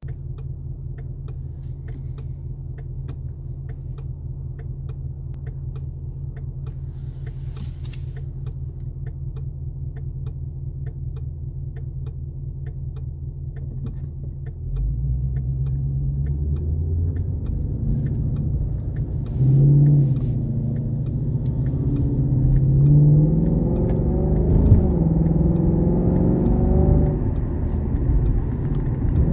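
Ford Mustang engine heard from inside the cabin, idling steadily at a stop, then pulling away about halfway through. The note gets louder and climbs in pitch in steps, with drops between them as it shifts through the gears under acceleration.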